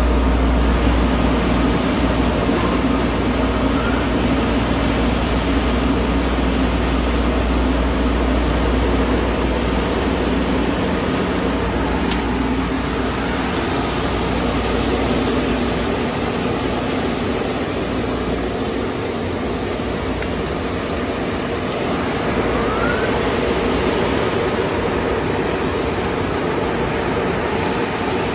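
Tunnel car wash dryer blowers running: a loud, steady rush of air, with a deep low hum under it that fades about halfway through.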